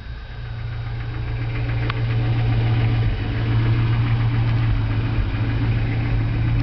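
1985 Toyota 4Runner's four-cylinder engine idling steadily, heard from inside the cab. There is one light click about two seconds in.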